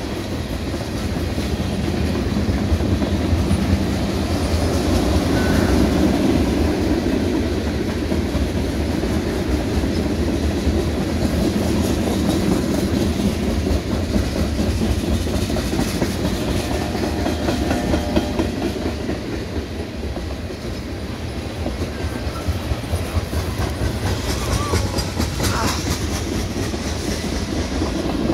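Freight train tank cars rolling past: steel wheels rumbling steadily on the rails, with the clickety-clack of wheels crossing rail joints.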